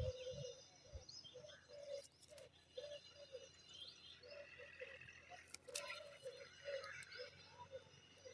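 Faint bird calls: short, soft low notes repeating two or three times a second, with brief high rising chirps over them. Two small clicks about two and five and a half seconds in.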